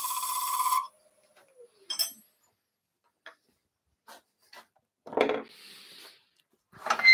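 Skew chisel cutting a spinning boxwood handle on a wood lathe, a hissing scrape that stops under a second in. The lathe's whine then falls in pitch as it spins down, followed by a few light knocks and two louder clatters, the loudest near the end.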